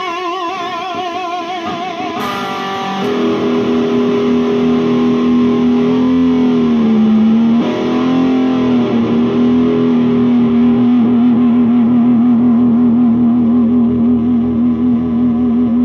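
Electric guitar through an amplifier: a couple of wavering vibrato notes, then one long sustained note about three seconds in. Its pitch dips and returns once, as from the Floyd Rose tremolo arm being pressed down and released, and it wavers again near the end.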